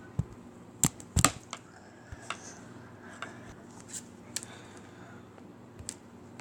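Scattered short, sharp clicks and knocks, about a dozen, the loudest pair a little over a second in, over a faint steady low hum.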